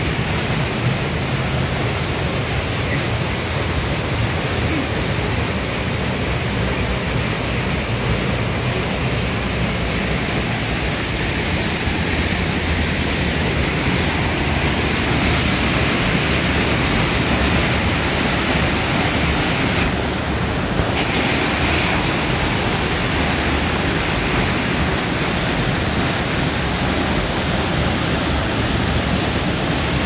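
Waterfall swollen with snowmelt pouring down close by: a loud, steady rush of falling water with no let-up. The rush turns duller about two-thirds of the way through.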